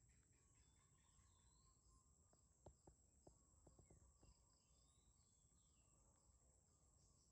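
Near silence: faint outdoor ambience with a steady high insect drone and a few distant bird chirps, plus several soft clicks a little before the middle.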